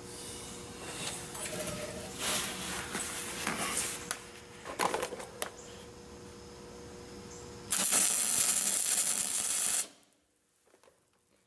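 MIG welder arc burning for about two seconds near the end, a loud steady hiss that cuts off suddenly, as a nut is welded onto a broken-off stainless bolt in a cast exhaust manifold. Before it, gloved hands clink and rustle the metal while setting up the weld.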